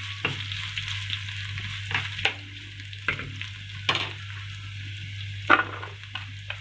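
Chopped onions frying in hot oil with a steady sizzle. Every second or so there is a short click or scrape as they are stirred in the pan.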